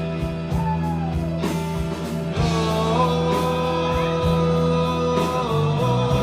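Live rock band playing a song: drums keep a steady beat under guitars. About two seconds in, a long held melody note slides up into place and sustains.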